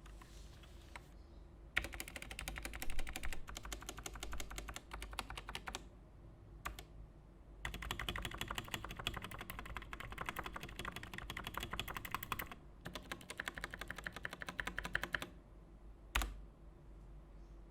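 Typing on a Digital Alliance Meca Warrior X RGB mechanical keyboard with Techware PBT doubleshot keycaps: fast keystroke clatter in three runs of a few seconds each with short pauses between, and a single louder keystroke near the end.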